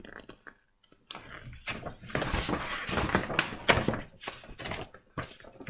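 A large glossy paper poster rustling and crackling as it is folded up and handled. It starts about a second in and dies away near the end.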